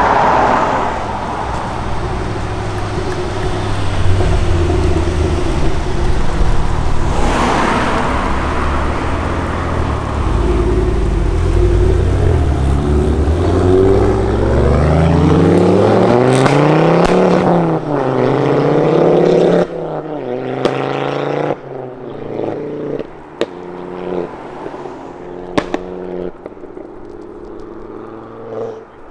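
Turbocharged five-cylinder engines of modified Mk2 Ford Focus RS and ST hatchbacks accelerating away, the revs climbing and dropping several times through gear changes. Near the end the engine note eases and a run of sharp pops is heard.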